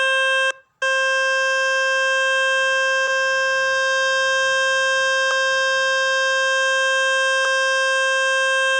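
A phone speaker playing the 'Fix My Speaker' water-ejection tone: a loud, steady buzzing tone with many overtones, meant to shake water out of a wet speaker. It cuts out for a moment about half a second in, then resumes.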